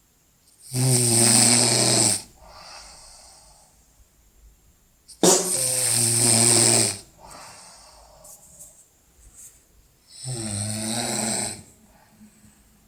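A sleeping person snoring loudly. There are three long snores, each lasting about a second and a half and coming some five seconds apart, with softer breathing between them.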